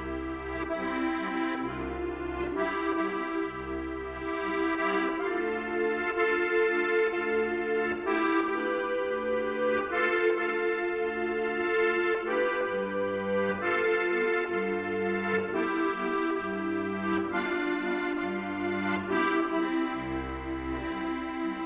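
Steirische Harmonika, a diatonic button accordion, playing a slow tune solo: held chords and a melody line over deep bass notes that sound about once a second.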